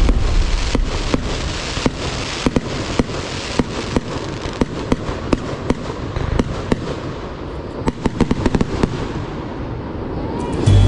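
Consumer fireworks going off: a rapid, irregular series of sharp pops and crackling bangs, thickest about eight to nine seconds in, with a short rising whistle near the end.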